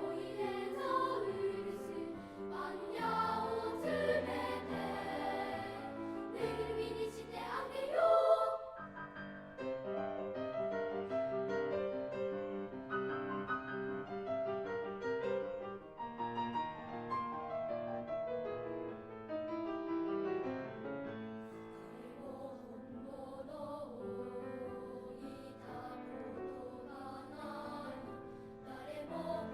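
Children's choir singing with piano accompaniment. The music swells to a loud rising sweep about eight seconds in, then drops to a quieter passage.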